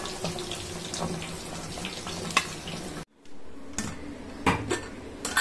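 Hot oil sizzling in a cast-iron kadai as fried chicken pieces are lifted out with a slotted spoon, with a light metal click. About three seconds in the sound cuts off, followed by a few clicks and knocks of a steel pressure cooker being handled.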